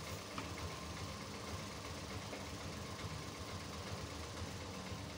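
Steady low background rumble and hiss with a few faint light ticks.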